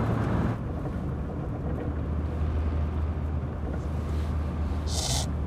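Steady low rumble of a car's engine and road noise heard inside the cabin, shifting slightly about half a second in. Near the end, a short hissing sniff.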